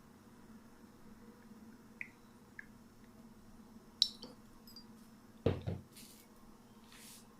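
Light clicks and taps of a measuring spoon, bottle and bowl being handled, with a dull double knock about five and a half seconds in, over a faint steady hum.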